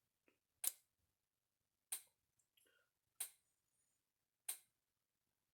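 Kencove EKD3 electric fence charger pulsing: a sharp tick about every 1.3 seconds, four in all. It is still firing on a supply turned down to 10.9 volts, just above where it starts to have problems.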